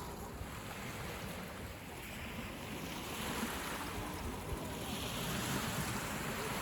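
Sea surf washing onto a beach, with wind on the microphone; the wash swells louder about three and five seconds in.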